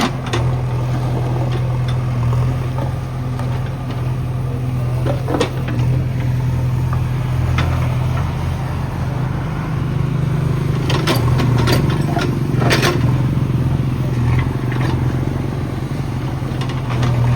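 JCB 3DX backhoe loader's diesel engine running steadily, with scattered clanks and scrapes, bunched together about two-thirds of the way through.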